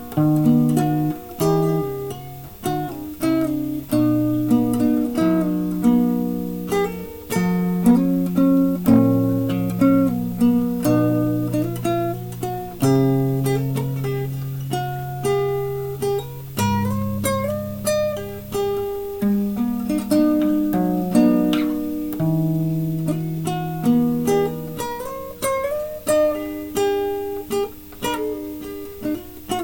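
Instrumental music on a plucked string instrument: single notes picked one after another, with held low bass notes under a higher melody.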